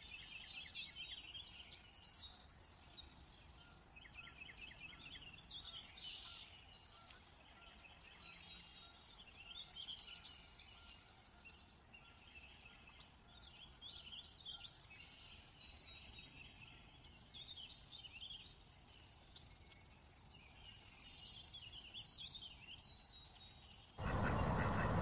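Songbirds chirping and trilling, with short phrases every second or two over a faint outdoor ambience. Near the end a much louder, even noise cuts in abruptly.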